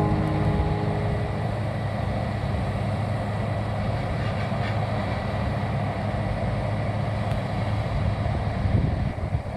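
New Holland combine harvester running steadily while its unloading auger pours grain into a trailer.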